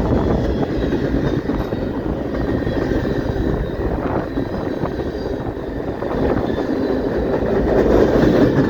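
CP Rail train rolling past, a loud, steady rumble of wheels and cars on the rails.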